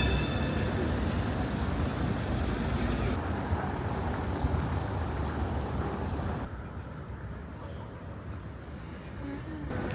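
Street traffic: vehicles running close by, a steady rumbling noise that drops and turns duller about six and a half seconds in.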